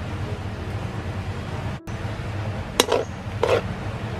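Spatula knocking against a wok twice, about three seconds in, while stirring a simmering mango sauce. A steady low hum sits underneath.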